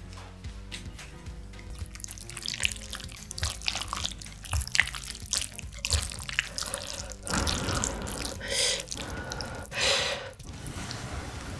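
Wooden chopsticks stirring and lifting instant noodles in a thick creamy broth in a bowl: wet dripping and slopping sounds with small clicks.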